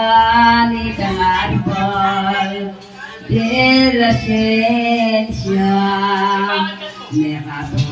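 A woman's voice singing a devotional song in long held notes that glide from pitch to pitch, with a short pause about three seconds in.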